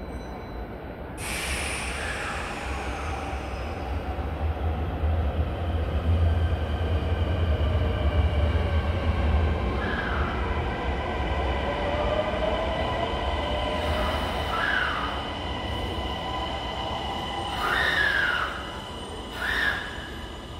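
Kintetsu 80000 series 'Hinotori' limited express electric train pulling into an underground station and braking to a stop. A low rumble of wheels on rail is loudest in the middle, with steady motor whine, and several short brake squeals come in the last seconds as it halts.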